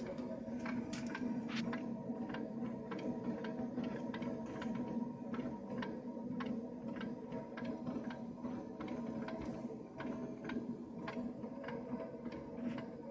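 Ovo smart gas meter clicking irregularly, about two or three sharp ticks a second, over a steady hum, as gas flows with the heating switched on.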